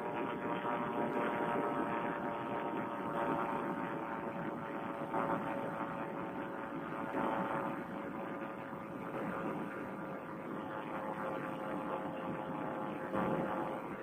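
Vittorazi Moster two-stroke paramotor engine and propeller droning steadily in cruise flight, with small swells in loudness.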